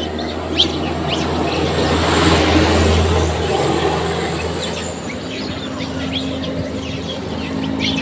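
Young long-tailed macaques giving short, high chirping squeaks, over a vehicle passing on the road that swells to its loudest about two to three seconds in and then fades.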